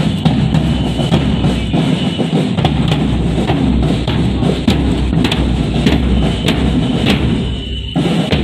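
Marching drum band playing, with bass drums beating a steady march rhythm among other drum strikes.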